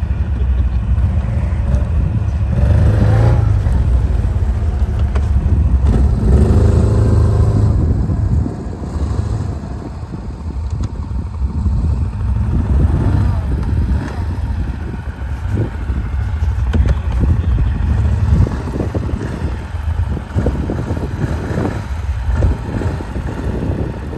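Quad bike (ATV) engine running under load and revving, with rising revs about three seconds in and again around six to eight seconds, then running lower and more unevenly.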